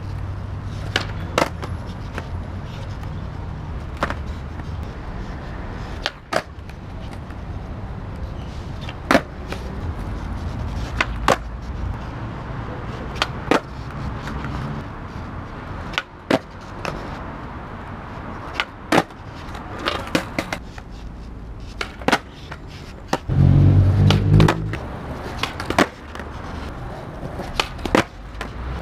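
Skateboard wheels rolling on rough concrete with a low rumble that rises and falls, broken again and again by sharp wooden clacks of the tail popping and the deck and wheels slapping down as tricks are tried. The rumble is loudest for a second or so near the end.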